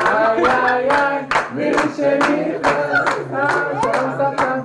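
A group of people singing together while clapping their hands in time, about three claps a second.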